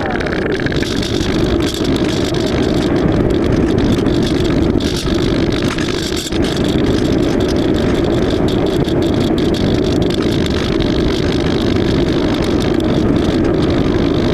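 Steady rushing noise from an AXN Floater Jet RC foam plane in flight, its airflow and electric motor heard through its onboard FPV camera, with no clear motor tone.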